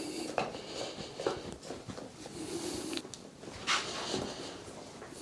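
Hands working on a person's body during chiropractic treatment: scattered soft knocks and clicks with rustling and breathy hiss.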